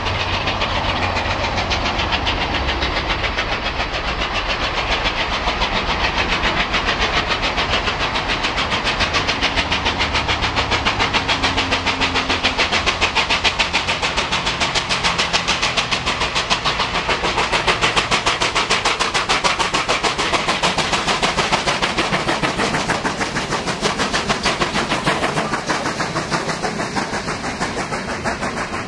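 NSWGR 38 class steam locomotive 3801 working hard, its rapid, even exhaust beats growing louder as it approaches and passes. The carriages then roll by with wheels clicking over the rail joints.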